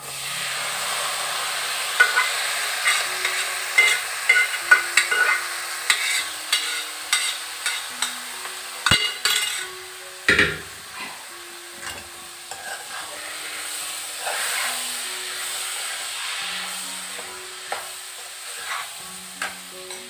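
Jackfruit seeds tipped into hot chilli masala in a kadai, setting off a sudden sizzle, then a steel spoon clicking and scraping against the pan as the mix is stirred. The clicks are thickest in the first half, and the sizzle eases to a softer hiss later.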